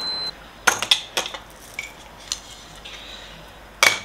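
Glass pot lids with steel rims knocking and clinking against a stainless-steel lid rack as they are set into it: a handful of separate clinks, the loudest near the end.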